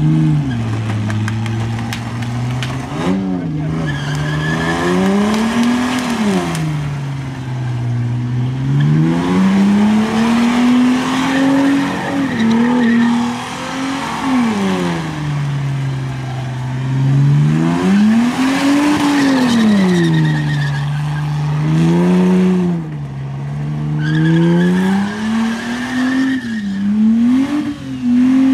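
Holden VT Commodore V6 engine revving hard and falling back in repeated swells during a burnout. The spinning rear tyres keep up a constant scrubbing hiss with a squeal that rises at times.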